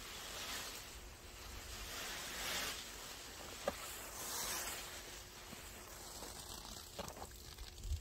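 Water sprinkling from the rose of a plastic watering can onto plastic mulch and soil: a soft spray noise that swells and eases a few times as the can is swung along the row.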